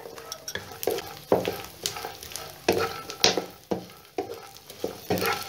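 Pieces of gond (edible gum) frying in ghee in a wok, sizzling, with a spoon scraping and clicking against the pan at irregular moments as it is stirred.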